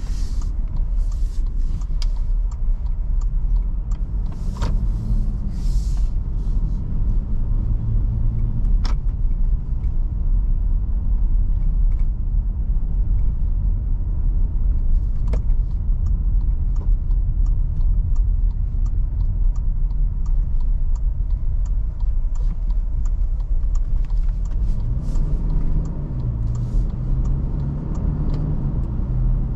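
A Toyota Fortuner 2.7 petrol SUV being driven, with a steady low road and tyre rumble throughout. The naturally aspirated 2.7-litre four-cylinder's note comes up and shifts in pitch about four to nine seconds in and again near the end. Light scattered ticks sound throughout.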